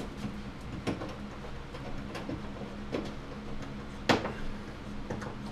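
A few scattered clicks and knocks of a screwdriver and hands working on the microwave's metal mounting, the loudest about four seconds in, as the mounting screws are tightened. A steady low hum runs underneath.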